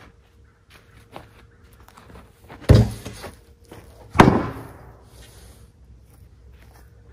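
Two heavy thuds about a second and a half apart as a freshly sawn American chestnut slab is set down across a tractor's steel pallet forks, the second with a short ringing tail.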